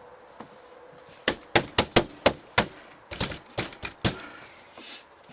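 Knocking on a door: a quick run of about six sharp knocks, then a few softer knocks and clicks.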